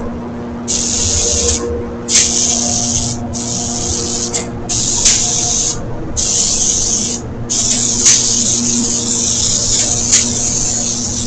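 Spray gun hissing as clear coat is sprayed. It fires in about five short passes of roughly a second each with brief gaps, then one longer continuous spray in the second half. A steady hum and a few sharp clicks run underneath.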